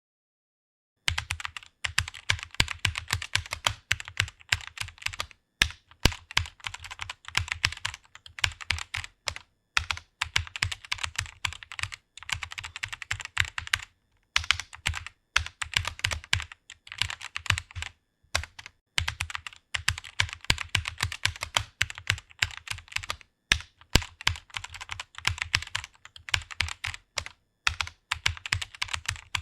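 Fast typing on a computer keyboard: a quick, continuous run of key clicks that starts about a second in, broken by a few brief pauses.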